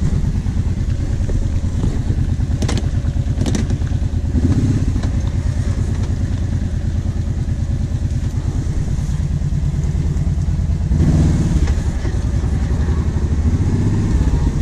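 Kawasaki Brute Force 750 ATV's V-twin engine running steadily at low speed, with two sharp clicks a few seconds in and a brief rise in engine level about eleven seconds in.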